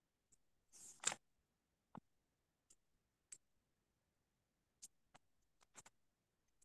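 Near silence, broken by a short rustle about a second in and about eight faint, scattered clicks.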